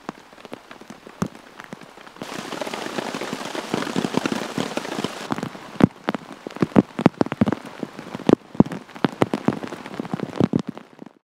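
Rain: a few scattered drops at first, then heavy rain from about two seconds in, a dense hiss with many loud drops striking close by. It cuts off abruptly just before the end.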